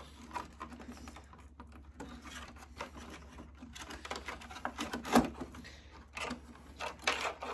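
Irregular light clicks, taps and rattles of plastic and a circuit board being handled as a mini split indoor unit's control board is fitted back into its plastic housing, with one louder knock about five seconds in.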